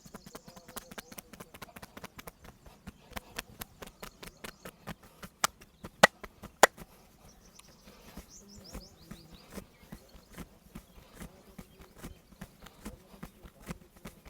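Hands rapidly slapping and tapping on a body in a percussive massage, a quick steady patter of about five or six hits a second. About five and a half seconds in come three much louder sharp hits, roughly half a second apart.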